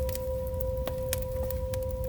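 Firewood burning in a traditional Korean agungi firebox: irregular sharp crackles and pops over a low rumble of the flames, with a steady high hum holding one pitch underneath.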